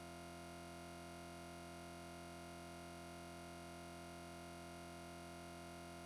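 Faint, unchanging electronic hum made of several steady tones, with no onsets or changes.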